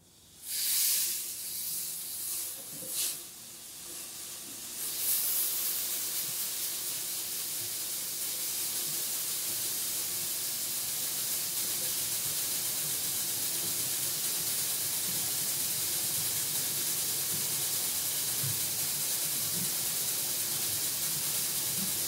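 Centrifugal-discharge bucket elevator starting up and running: a steady hiss of granular product being carried by the buckets and pouring through the head and spouts. Louder rushes about a second and three seconds in come while it is still getting up to speed.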